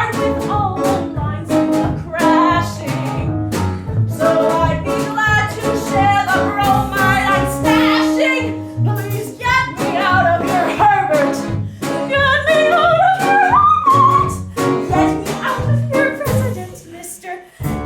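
A musical-theatre song: a female voice sings a wavering melody over an instrumental accompaniment with a pulsing bass line. The music drops away briefly near the end and then comes back in.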